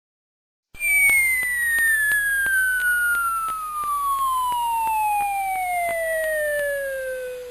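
A long descending whistle sound effect: a single tone starting high about a second in and gliding steadily down in pitch for about seven seconds, with faint ticks about three times a second beneath it.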